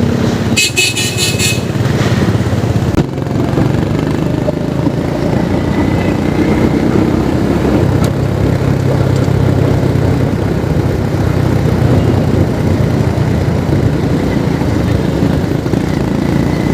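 Vehicle engine running steadily with road and traffic noise while driving along a city street, with a brief high, pulsing sound about a second in.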